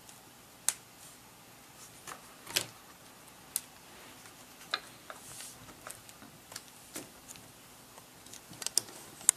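Scattered small plastic clicks and taps as fingers press along the edge of a ThinkPad T470s screen and its surround, seating and straightening the bent parts. There are single clicks every second or so, then a quick run of several clicks near the end.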